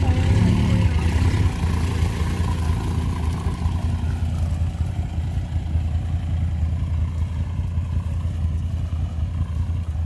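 Mahindra Roxor's tuned 2.5-litre turbodiesel engine, with an aftermarket exhaust, pulling away in gear. It is loudest in the first second or two, then settles into a steady, somewhat quieter drone as the vehicle drives off.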